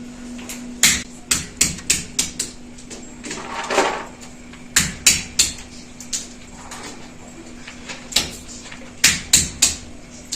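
Sharp knocks struck in quick clusters: about six in the first two and a half seconds, three more near five seconds, and four near the end. A steady low hum sits under them, and a brief scraping sound comes just before four seconds in.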